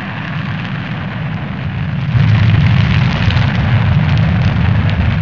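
Rocket engine liftoff sound effect: a continuous deep, rushing noise from the engine's exhaust, growing louder about two seconds in as the rocket climbs.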